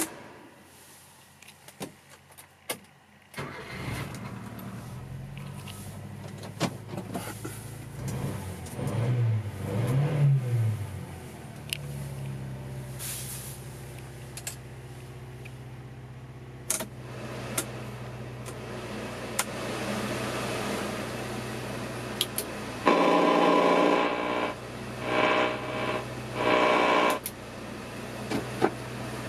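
The Subaru Sambar's 660cc EN07 inline-four starts about three seconds in, is revved briefly twice, then idles steadily. Near the end the dashboard radio comes on in a few short bursts.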